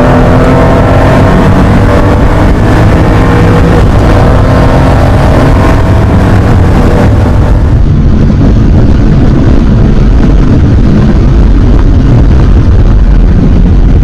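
In-cabin sound of a 1980 Porsche 911 SC's air-cooled flat-six under racing load, its revs climbing slowly. About eight seconds in the sound switches abruptly to a duller rumble of engine and road noise without the clear engine tones.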